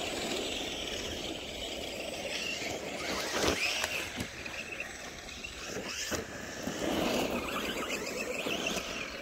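Arrma Senton RC truck driving, its electric motor whine rising and falling, with two sharp knocks about three and a half and six seconds in.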